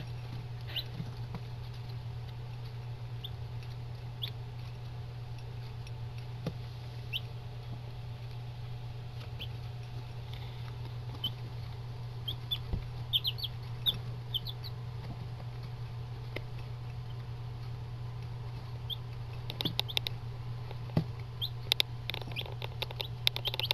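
Eight-day-old chicks giving short scattered peeps over a steady low hum, with the patter and scratching of the chicks kicking their food about, busiest near the end.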